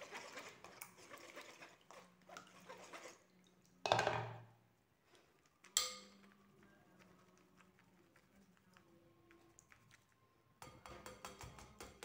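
A metal mesh sieve being worked over a glass bowl as lemon juice with sugar and zest is strained. It starts with a scraping, rustling stretch, then come two sharp knocks with a short ring, the loudest sounds, and near the end a quick run of small clinking taps.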